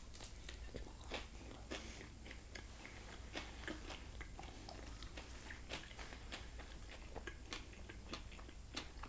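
Close-up chewing of a bite of fish taco in a soft flour tortilla with cabbage slaw: many small, irregular wet mouth clicks and light crunches.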